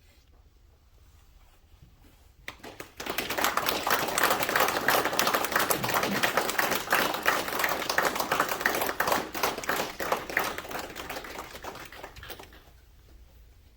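A small group of people applauding in a room, starting about two and a half seconds in, holding steady and dying away near the end.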